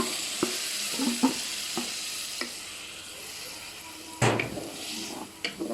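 Tomato juice going onto onions fried in butter in a hot pot, sizzling and dying down over a few seconds, with light spoon taps against the pot. A louder knock comes about four seconds in.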